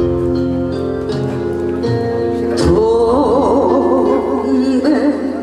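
A Korean popular song with sustained instrumental accompaniment, then a woman's singing voice with strong vibrato comes in about two and a half seconds in.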